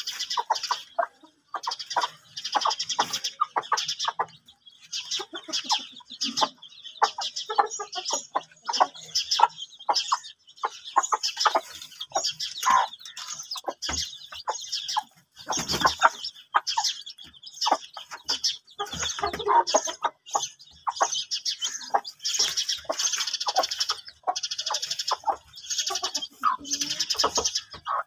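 Newly hatched chicks peeping almost without pause while the hens cluck around them.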